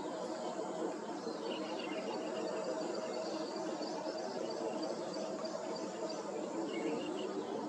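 Steady outdoor background noise with a faint hum, and a few faint, short bird chirps about a second and a half in and again near the end.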